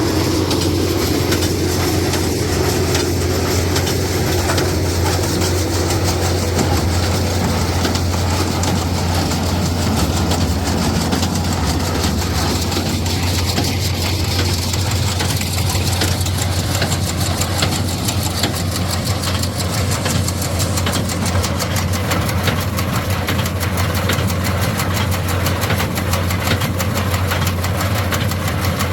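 Tractor engine running at a steady speed, driving an old New Holland Hayliner 67 square baler, with a fast, even clatter over a constant low drone.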